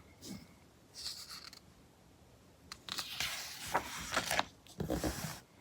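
Pages of a heavy-paper magazine rustling and sliding as they are handled and turned, in short bursts: a brief rustle about a second in, then a longer stretch of rustling from about three seconds to four and a half.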